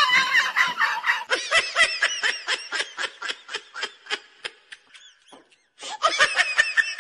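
High-pitched laughter in quick, even bursts of about five a second, dying away around five seconds in, then a second round of laughter near the end.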